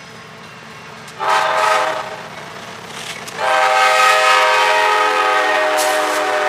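Diesel locomotive air horn on the lead unit, a GE AC6000CW, sounding a short blast about a second in and then a long blast from about halfway, over the rumble of the passing six-locomotive freight train.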